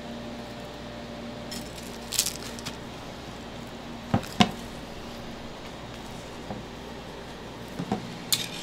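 Metal ice cream scoop working firm ice cream in a tub and on a stack: a few short clicks and knocks, the loudest two close together about four seconds in, over a steady low hum.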